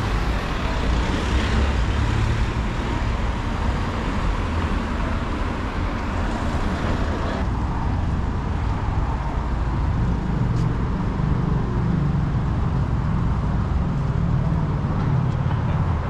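Steady road traffic on a city street, cars running past, the hiss of it dropping off somewhat about halfway through.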